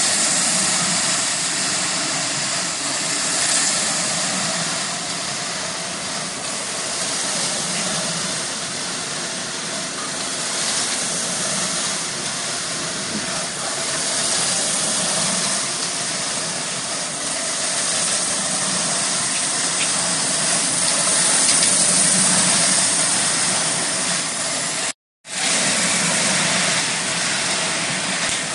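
Homemade drum coffee roaster running: a steady hiss from the gas burner flame under the stainless steel drum, mixed with coffee beans tumbling inside the turning drum. The sound breaks off for a moment near the end.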